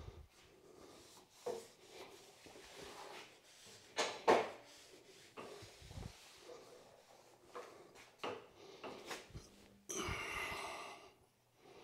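Faint handling noises of a heavy solid steel shaft being shifted on a metal-cutting bandsaw and roller stand: scattered knocks and rubs, the loudest about four seconds in, and a longer noisy scrape just after ten seconds.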